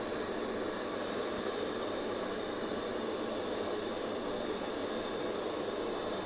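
Electrolux Aqualux EW1006F washing machine filling, water rushing into the drum in a steady hiss.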